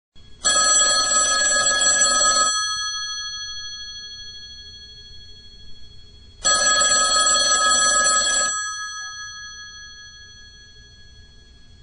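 Telephone bell ringing twice, each ring about two seconds long, with the bell tones fading out after each ring.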